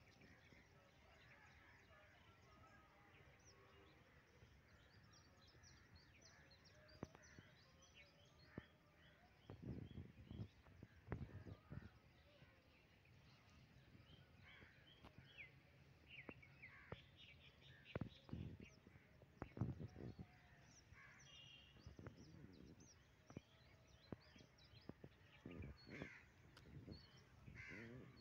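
Faint bird calls and chirps repeating throughout, with a few low rumbles on the microphone, the loudest of them about ten and eighteen seconds in.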